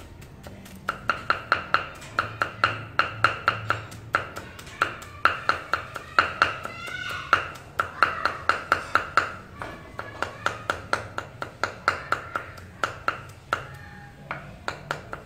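Broad-bladed kitchen knife rapidly mincing garlic on a thick wooden chopping board: quick knocks about five a second in runs with short pauses, each knock followed by a brief ringing note.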